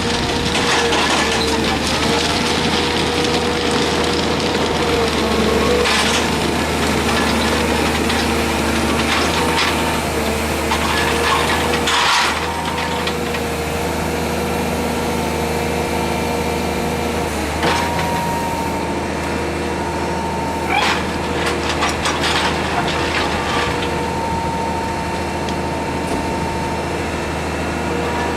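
Excavator's diesel engine running steadily with a whine, and a few sharp knocks and clanks scattered through, the work of setting concrete railway sleepers.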